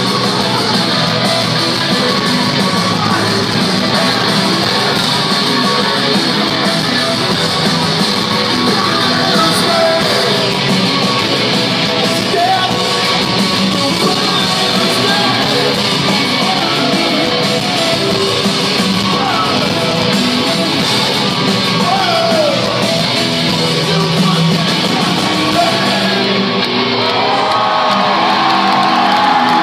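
Live industrial rock band playing loud through a concert PA in a large hall, with electric guitars and a singer's voice over the band.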